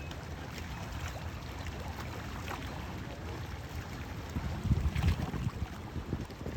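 Wind rumbling on the microphone over water lapping and splashing against a kayak's hull, with stronger gusts about four and a half seconds in.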